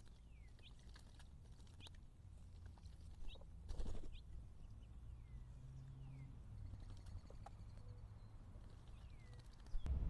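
Faint outdoor ambience of scattered short bird chirps, some sliding down in pitch, over a low steady rumble. There is a brief rustling scrape about four seconds in.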